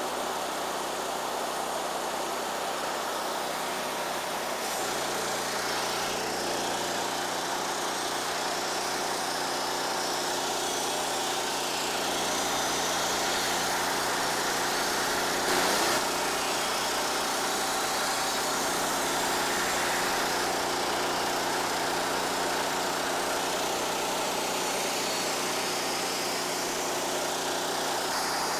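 Wood-Mizer LT15 portable band sawmill running steadily under load, its engine-driven band blade cutting lengthwise through a locust log. A brief knock about halfway through.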